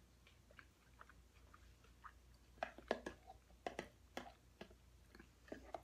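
Faint chewing, then from about two and a half seconds in, a run of sharp clicks and scrapes: a metal fork knocking and scraping inside a plastic food container as food is scooped from it.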